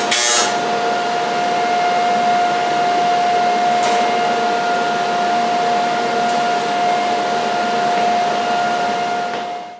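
The buzz of an AC TIG arc on the aluminum hull seam stops about half a second in. A steady machine whir with a constant hum tone carries on, then fades out near the end.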